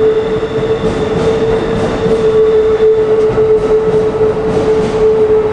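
Keikyu Airport Line train running over the level crossing, its wheels clattering over the rail joints, with a steady mid-pitched tone sounding under the running noise.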